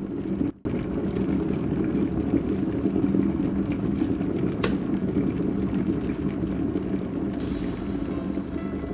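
Glass electric kettle at a rolling boil, a steady low rumble of bubbling water, with a single click about halfway through as it switches itself off.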